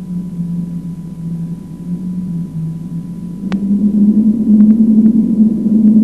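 Low sustained drone from the documentary's synthesized soundtrack music, a wavering tone that steps up in pitch and grows louder about three and a half seconds in, where a single sharp click sounds, followed by a few faint ticks.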